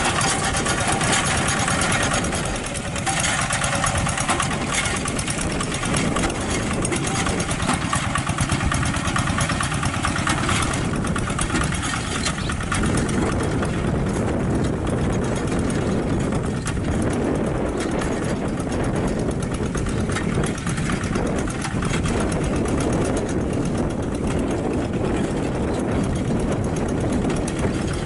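Two-wheel hand tractor's single-cylinder diesel engine running continuously while it drags its cage wheels and plow through rice-field mud; the higher part of its sound thins out about halfway through.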